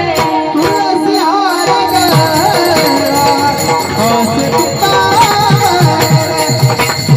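Marathi folk song: a wavering melodic line, most likely a voice, over a hand drum beating a steady rhythm, with jingling percussion ringing throughout.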